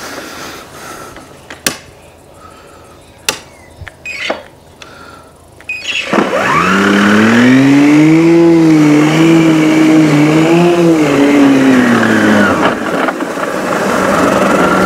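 Pellenc Rasion 2 battery lawn mower's electric motor and blade, cutting long overgrown grass. At first it runs quietly with scattered clicks. About six seconds in it rises to a loud, wavering hum, holds for about six seconds, then winds back down.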